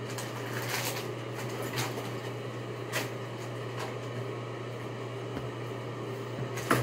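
Someone rummaging through small belongings, with scattered light clicks and rustles of things being handled and a sharper knock near the end, over a steady low hum.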